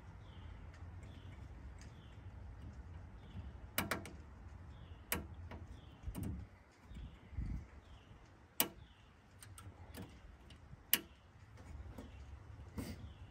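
Sharp plastic clicks and small knocks every second or two as an electric fan kit's plastic push-through mounting rods are worked through the radiator core. A low steady rumble runs underneath.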